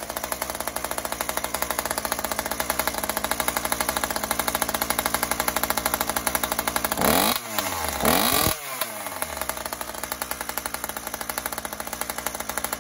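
Two-stroke chainsaw fitted with an expansion chamber exhaust, idling with a rapid pulsing beat and a sound like a dirt bike. It is blipped twice, about seven and eight seconds in, the pitch rising and falling each time, then settles back to idle.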